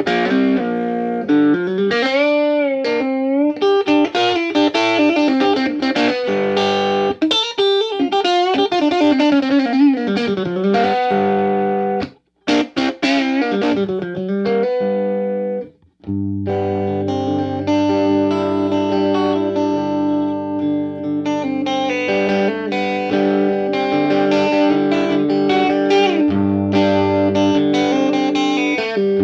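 Electric guitar played through a freshly recapped 1962 Fender 5F1 Tweed Champ, a small single-ended 6V6 tube amp, picked up by a microphone in front of its speaker. It opens with single-note lines and bent notes, breaks off briefly twice, then plays ringing chords with low notes from about halfway through.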